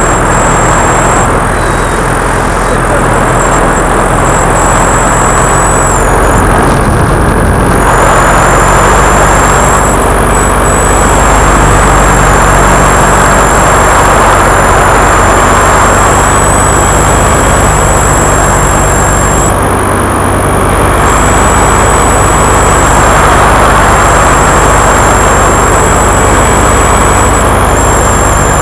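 Paramotor engine and propeller running steadily in flight, loud, with rushing air noise over the sound; the note eases a little about twenty seconds in, then picks back up.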